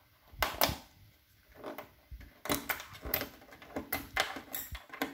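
Colour-coded plastic speaker-cable plugs clicking as they are pulled out of the speaker sockets on a Sony AV receiver's back panel, with the cables rattling: two clicks near the start, then a quick run of clicks and knocks from about halfway through.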